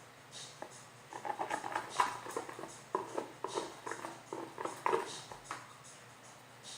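Unformed orange glue slime being stirred and worked in a container: a quick run of wet, sticky clicks and squelches for about four seconds, then it stops.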